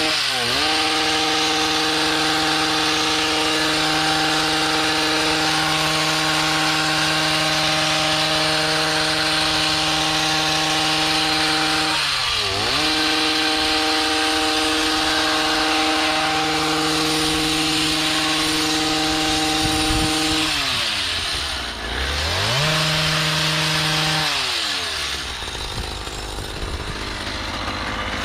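Small two-stroke engine of a gas hedge trimmer running at full throttle, let off briefly and opened up again four times.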